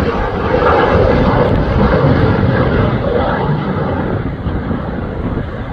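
Jet fighter's engine overhead on landing approach with its gear down: a steady rushing noise that slowly fades as the aircraft moves away.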